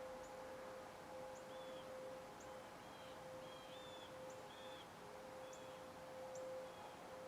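A distant outdoor warning siren, a "1000" model, sounding one steady, faint tone. Small birds chirp over it in short, repeated calls.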